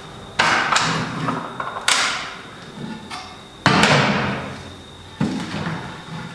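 Wooden pallet plank knocked and set down on the mitre saw's table as it is positioned for a test cut, four separate thumps, the loudest a little past the middle. The saw motor is not running.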